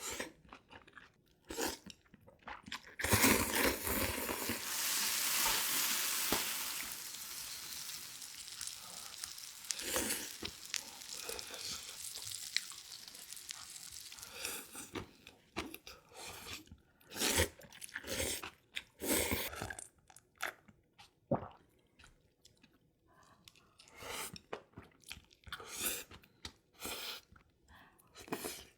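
Close-up mukbang eating sounds: a person biting and chewing Korean beef offal, with crunching and wet chewing in short bursts. A long, loud hiss starts about three seconds in and slowly fades over the next ten seconds or so.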